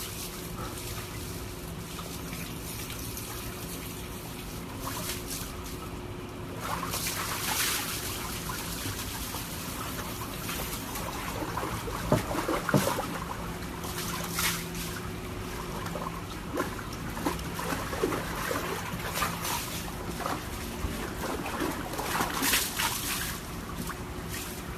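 Water sloshing and splashing in a plastic tub as a husky moves and turns around in it, with water trickling over the tub's rim. The loudest splashes come about halfway through and again near the end, over a steady low hum.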